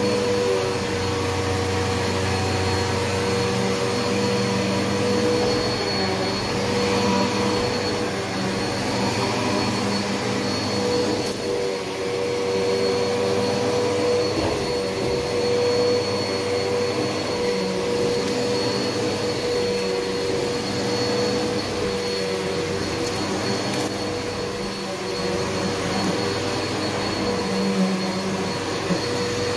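Bissell PowerGlide upright vacuum cleaner running on carpet: a steady motor hum with a thin high whine, unbroken throughout.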